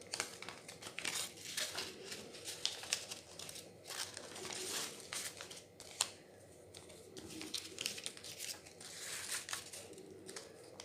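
Paper rustling and crinkling as money is slipped into a paper wallet folded from an A4 sheet. The crinkles come irregularly, with one sharp click about six seconds in.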